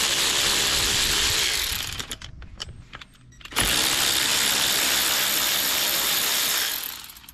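Power ratchet spinning out the 3/8-inch bolts of a small outboard gearcase's front cover. It runs twice, for about two seconds and then about three, with a few light clicks in between.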